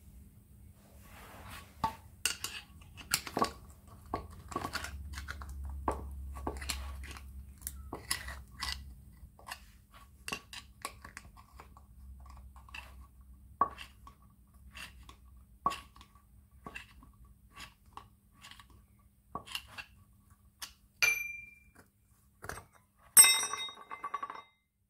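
Hammer and cold chisel splitting a steel bearing cup and prying it out of an aluminium diff screw adjuster: irregular sharp metallic knocks and clinks over a faint low hum. Near the end comes one ringing clink, then a brief clatter of metal.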